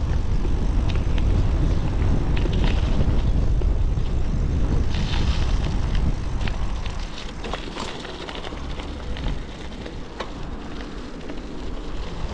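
Wind buffeting the microphone while cycling, a low rumble with scattered clicks and rattles from the bike. The rumble eases about seven seconds in.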